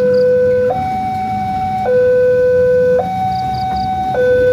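Railway level-crossing warning alarm sounding an electronic two-tone signal, switching between a lower and a higher tone about once a second, warning that a train is approaching while the barriers come down. A low rumble of waiting traffic lies under it.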